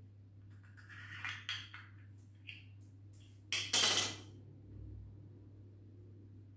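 Small hard makeup items, compacts and a brush, clicking and clattering against an open makeup case as they are handled, with the loudest clatter about three and a half seconds in.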